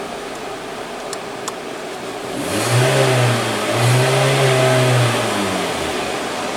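2017 Hyundai Elantra's four-cylinder engine snapped twice from idle: it revs up, holds briefly and drops back each time, about halfway through. This is a snap-throttle check for misfire after an ignition coil replacement, and the engine revs and returns to idle cleanly.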